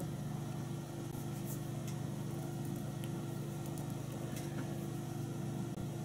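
Steady low hum of room background noise, with a few faint light clicks.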